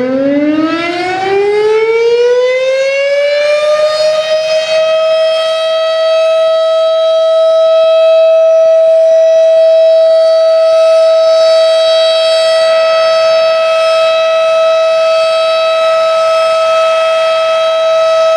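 Federal Signal Thunderbeam 12-port civil defense siren winding up, its pitch rising over the first four seconds, then holding one loud, steady tone: the steady alert sounded for a tornado drill.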